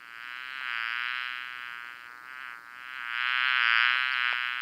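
Bee buzzing: a continuous buzz that wavers slightly in pitch and swells and fades, dipping a little past halfway and growing loudest near the end.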